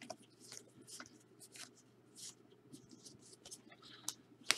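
Trading cards being flipped through and slid against one another: faint, short brushing strokes, with one sharper click near the end.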